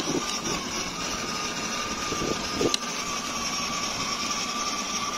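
Electric drive motors of a kids' ride-on car running at 30% PWM from a 14.4 V drill battery, with a steady high whine, over the rolling noise of its plastic wheels on tarmac. A sharp click about two and a half seconds in.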